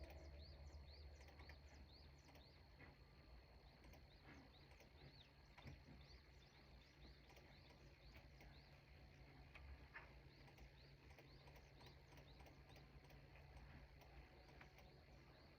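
Near silence: a faint low hum with faint short high chirps, a little more than one a second.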